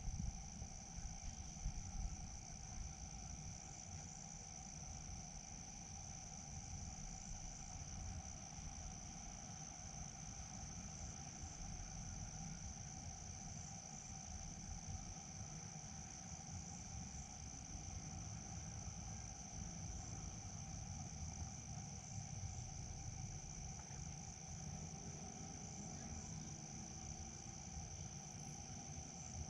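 Steady insect chorus of crickets: a continuous high trill, over a lower steady drone and a low rumble, with a few soft knocks in the first two seconds.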